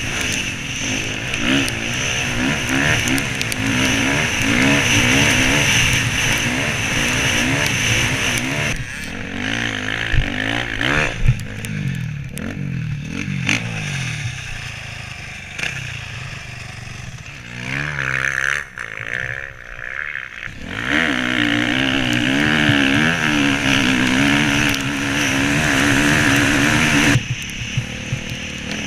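Suzuki RM-Z450 four-stroke single-cylinder dirt bike engine running hard, its pitch rising and falling with the throttle. About a third of the way in the revs drop and there are scattered clattering knocks as the bike goes down in the sand. The engine then runs low and uneven before revving hard again about two-thirds in, dropping back near the end.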